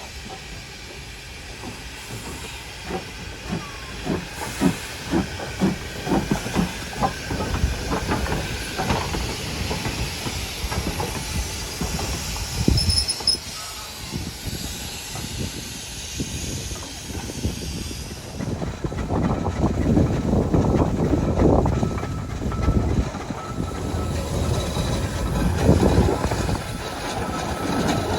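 Steam locomotive working, its exhaust beating in an even rhythm of about two to three chuffs a second over a steady steam hiss. It grows louder in the second half.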